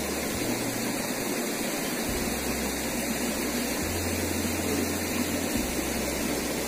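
Flood-swollen stream rushing steadily.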